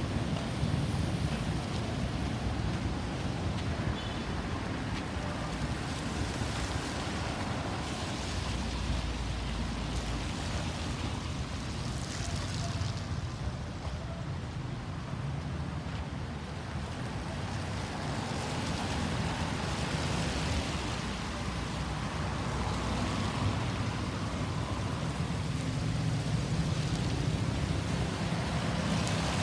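Road traffic: a steady low rumble of engines and tyres, with the noise of passing vehicles swelling and fading every several seconds.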